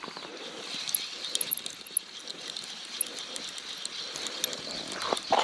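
Quiet riverside ambience: a steady high hiss with many small scattered ticks and a few brief high chirps, and no single event standing out.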